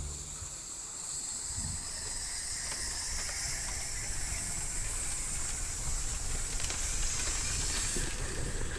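Steady rushing hiss of water falling at a small waterfall, growing slightly louder.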